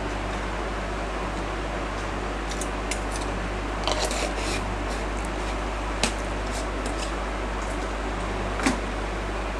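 Steady hum and fan noise of an induction cooktop running, under nuts frying in a pan. About four seconds in, a short cluster of small clicks as raisins drop into the pan, then two sharper single ticks later on.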